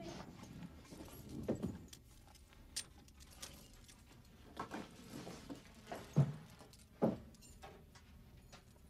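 A chain and studded leather gear jangling and rattling in scattered bursts, with a handful of louder knocks spread through.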